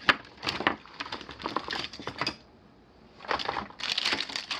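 Rapid light clicks and rattles of small hard objects being handled and shifted on a workbench, in two bursts with a short pause between.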